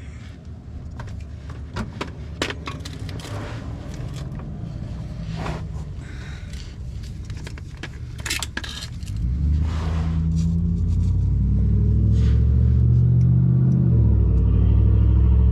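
Metal clinks and scrapes of hand tools and hardware for the first several seconds. About 9 s in, a loud, steady low rumble from an unseen machine starts, swells around 12 s and keeps going.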